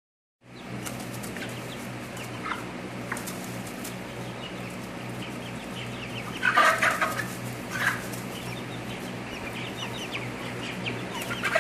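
A flock of chickens, mostly white Cornish Cross broilers, clucking and giving many short high calls. There are louder calls about six and a half seconds in and again near eight seconds, over a steady low hum.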